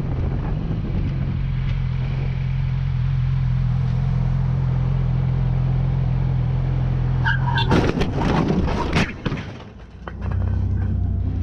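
Motorcycle engine running with a steady drone, then about eight seconds in a loud, clattering crash lasting a second or so, typical of the bike being struck in a collision. A lower steady engine drone follows.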